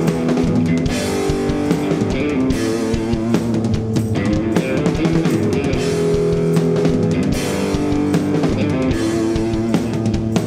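Live garage rock from a guitar-and-drums duo: a loud electric guitar playing sustained chords over a full drum kit.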